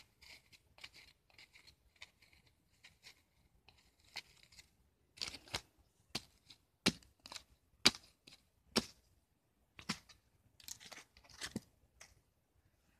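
Pen scratching across a paper disc in faint, quick strokes, then a series of sharp paper crackles and taps from about five seconds in.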